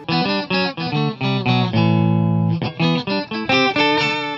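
Electric guitar played through an Electro-Harmonix Intelligent Harmony Machine pedal in Perfect 5th Up mode, each note joined by a harmony a fifth above. A quick run of single notes, a chord held for about a second near the middle, then more quick notes.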